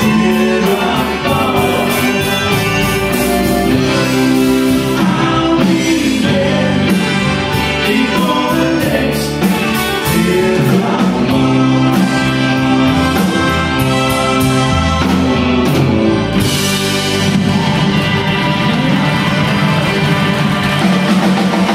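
Live Tex-Mex country band playing through a PA: trumpet, accordion, electric guitars, keyboard and drums, with singing.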